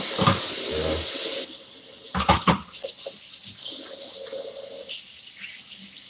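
Kitchen tap running into the sink: a full, loud rush for the first second and a half, then a quieter steady flow. A few sharp knocks sound about two seconds in.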